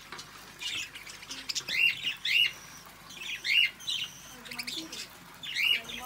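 Budgerigars calling, a string of short, harsh chirps that come in small groups about every second.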